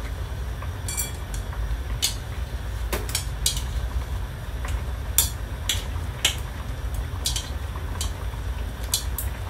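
Chopsticks clinking and tapping against a metal wok while stirring noodle soup, about a dozen irregular sharp clicks, over a steady low rumble.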